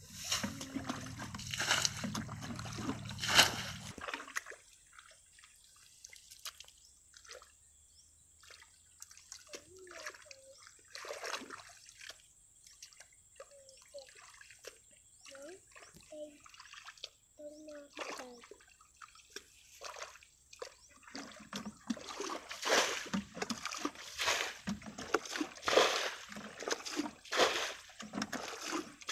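A plastic bucket bailing and pouring shallow muddy water, with repeated splashing and sloshing. The splashing is loud for the first few seconds, drops to scattered small splashes for a long stretch as hands scoop in the mud, and comes back fast and repeated for the last several seconds.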